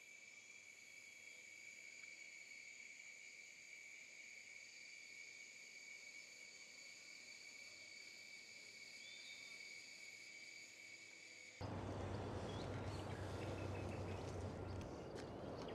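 Crickets or other night insects chirring steadily and faintly in a quiet evening ambience, several high steady tones at once. About eleven and a half seconds in, this cuts off abruptly to louder outdoor background noise with a low hum and scattered clicks.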